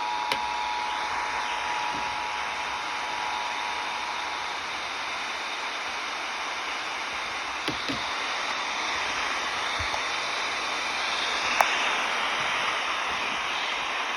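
Steady radio static hiss, with the two-tone EAS attention signal sounding under it and cutting off about four and a half seconds in. A few faint clicks come through the hiss.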